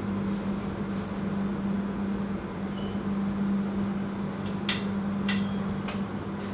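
Steady hum inside a passenger train carriage, holding one constant pitch over a low running haze. Two sharp clicks come about four and a half to five seconds in.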